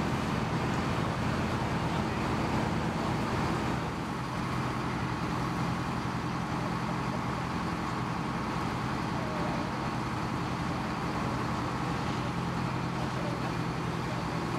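Fire engine's motor running steadily while pumping water to the hose lines: a constant low engine drone under a broad rushing noise. The sound shifts slightly about four seconds in.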